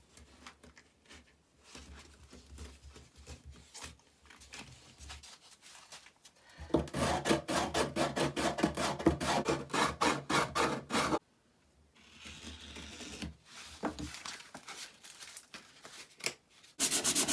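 Rapid back-and-forth rubbing strokes on wood, cleaning up the edge of a freshly cut ukulele sound hole by hand. Faint at first, the strokes turn loud and fast, several a second, from about a third of the way in, stop briefly about two-thirds in, come back quieter, and turn loud and fast again near the end.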